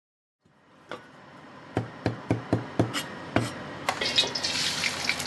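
Restaurant kitchen sounds fade in. There is a quick run of about seven sharp knocks on wood, and then the sizzle of food frying rises near the end.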